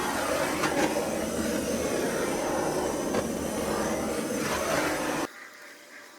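Wood being worked on a woodturning lathe: a loud, dense, steady noise of the tool against the spinning oak, which cuts off suddenly about five seconds in.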